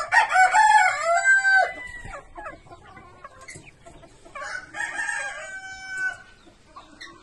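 Rooster crowing twice: a loud crow lasting about a second and a half at the start, then a quieter one about four and a half seconds in.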